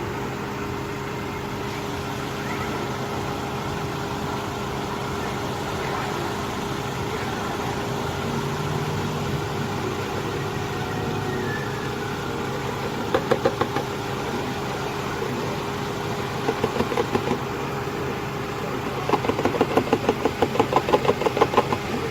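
Motor oil glugging out of a plastic jug into an engine's oil filler, in three spells of rapid pulses, about four a second, the last and longest near the end. A steady mechanical hum runs underneath.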